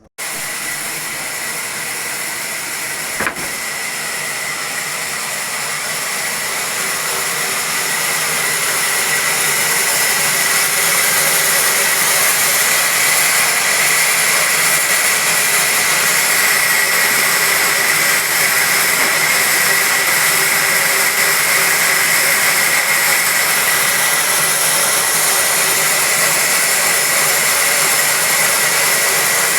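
Sawmill machinery running: a steady mechanical noise with a high whine, starting abruptly, growing louder over the first several seconds and then holding steady.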